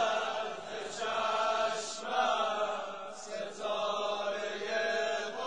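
Voices chanting a Persian mourning lament (noha), in long drawn-out melodic lines with no clear words.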